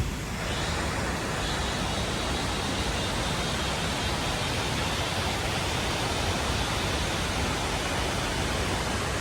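Steady rush of flowing stream water, an even hiss with no separate knocks or splashes.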